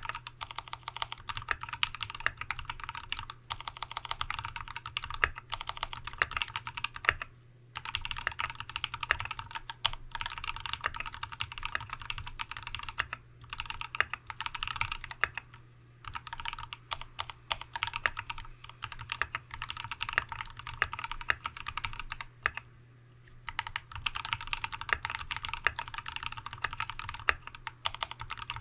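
Fast continuous typing on a TX75v2 custom mechanical keyboard with a brass plate, lubed Tealios V2 linear switches with Cherry top housings and Dev/tty keycaps, the keystrokes in quick runs with brief pauses three times.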